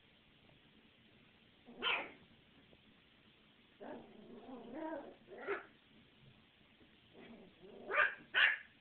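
A 13-week-old puppy barking: a few short, sharp barks spread out, with a longer, lower run of vocalising in the middle and two quick barks close together near the end.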